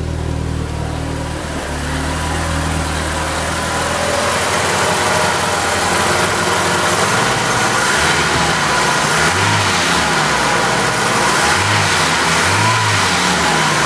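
1974 BMW 2002's carburetted four-cylinder engine idling shortly after a cold start, heard up close from the engine bay. Its pitch wavers up and down in the second half.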